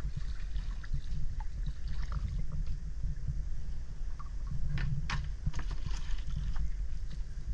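Wooden paddle stroking through the water beside a wooden dugout canoe, with a few sharp knocks and splashes about five to six seconds in, over a steady low rumble.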